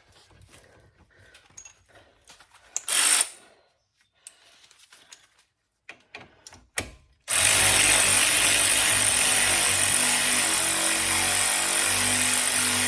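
Light clicks and knocks of metal parts being handled, with one louder short scrape about three seconds in. At about seven seconds a power drill starts and runs steadily, driving a brake caliper sliding pin back in.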